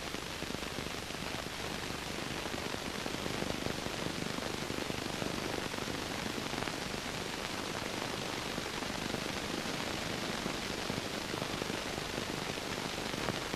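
Steady hiss with fine crackle, the background noise of an old optical film soundtrack, with no distinct sound events.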